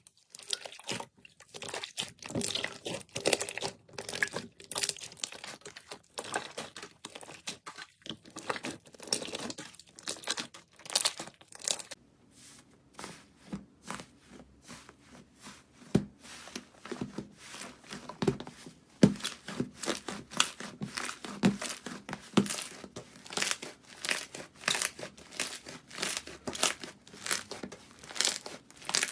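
Slime being worked and squeezed, making a dense run of crackles, pops and crinkling. About twelve seconds in the sound changes, with deeper pops from then on.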